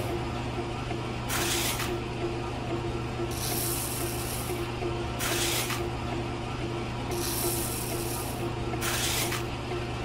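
Small electric motor of a miniature shaking sand sieve humming steadily while it drives the screen. Sand hisses through the mesh in short pours every second or two as it is spooned onto the sieve.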